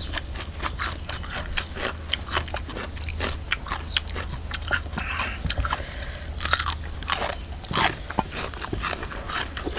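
A person chewing crunchy food close to the microphone: a run of quick, crisp crunches with a few louder ones, over a steady low hum.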